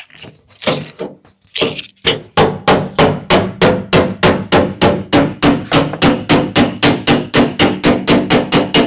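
Panel-beating hammer striking a classic Lancia's rear quarter-panel edge against a dolly held behind it: hammer-and-dolly work to squeeze a dent flat. A few separate blows, then from about two seconds in a rapid, even run of about four strikes a second, each with a metallic ring.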